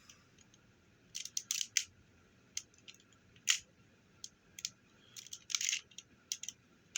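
Hard plastic parts of a transforming robot toy being handled and moved: a scatter of short clicks and brief scrapes, the sharpest about three and a half seconds in.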